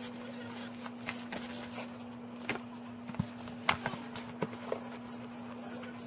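Paper and cardboard being handled: a paper sheet and tissue rustling and a cardboard tablet box scraping and tapping as it is lifted and turned, with scattered sharp ticks, the loudest about three and a half seconds in. A steady low hum sits underneath.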